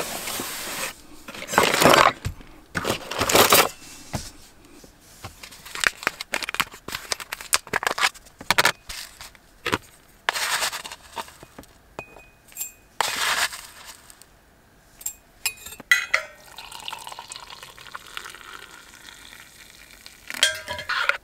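Making a mug of coffee by hand: packaging rustles and tears, then a metal spoon clinks against a jar and a ceramic mug as whitener is spooned in. Near the end, hot water is poured into the mug with a steady trickling hiss.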